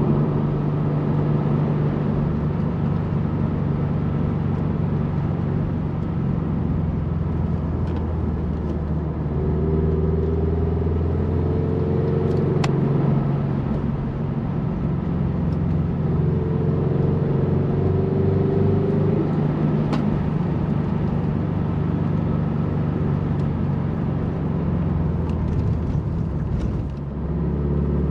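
Turbocharged Scion FR-S's 2.0-litre flat-four engine running under way, heard from inside the cabin, its pitch rising twice as the car accelerates. There is a brief drop in level near the end.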